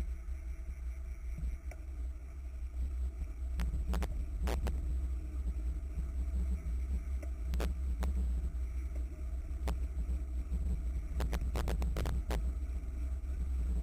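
Wind buffeting and road noise on a racing bicycle's mounted camera, a steady low rumble, with scattered sharp clicks and a quick cluster of them near the end.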